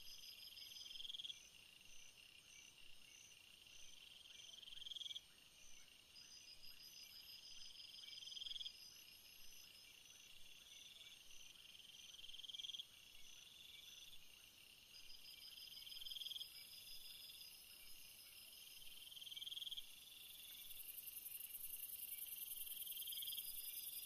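Faint night-time insect chorus. A high buzzing call swells and stops abruptly about every three to four seconds over steady, evenly pulsed chirping trills, and a thin high hiss grows louder near the end.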